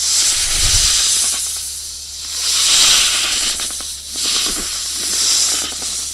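Snake hissing in three long breaths, each swelling up and fading.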